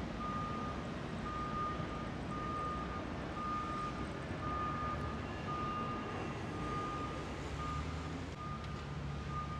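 A vehicle's reversing alarm beeps a steady single tone about once a second, over the low rumble of engines and traffic.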